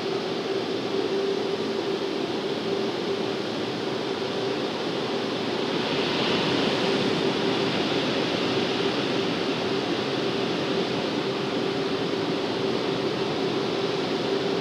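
Car wash drying blowers running, heard from inside the car: a steady rush of air over a constant fan hum. The rush grows louder and brighter about six seconds in, as the overhead blower bar comes down over the windscreen.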